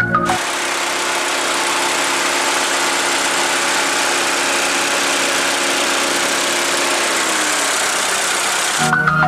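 2016 Chevrolet Tornado's four-cylinder petrol engine idling steadily, heard close up under the open hood.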